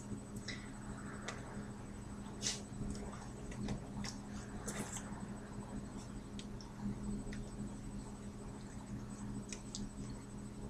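Faint irregular taps and brief rustles of hands and hoodie sleeves moving and touching while someone signs, over a steady low electrical hum.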